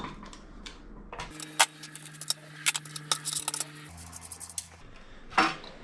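Irregular light metallic clinks and taps as tools and small steel and brass parts are handled while bolts are taken out of a sandwich press. One tap is sharper than the rest, and a faint steady hum sits underneath.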